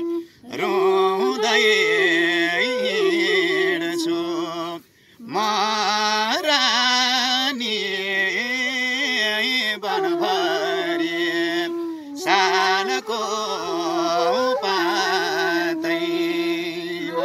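A man singing a Nepali folk song in a wavering, ornamented voice while a bamboo flute holds steady notes beneath. The music breaks off briefly about half a second in and again about five seconds in.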